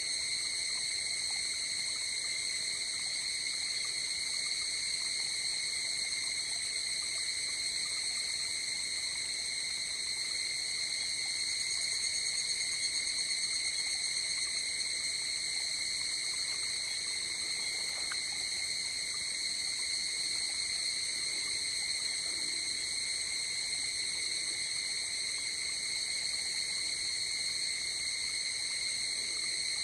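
Dense chorus of crickets and other night-singing insects: steady, unbroken high-pitched trills at several pitches at once.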